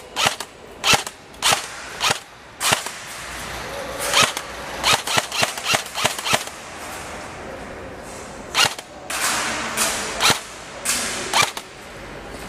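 Airsoft guns firing in an exchange: about twenty sharp cracks of single shots at irregular intervals, some in quick pairs and triples, with a denser stretch of shots near the end.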